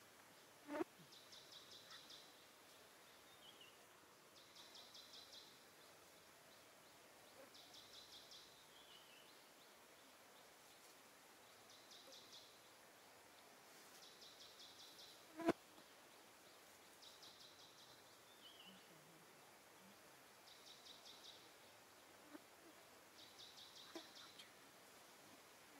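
Faint insect song: short, high-pitched pulsed trills about a second long, repeating every three seconds or so, with a few soft descending chirps between them. A sharp click about halfway through is the loudest sound, and a softer thump comes just under a second in.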